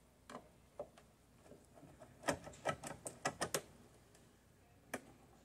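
Light clicks and taps from a hand screwdriver turning a screw in a sun visor bracket on a 1976 Corvette's windshield header. There are a few single clicks, then a quick run of about eight around the middle.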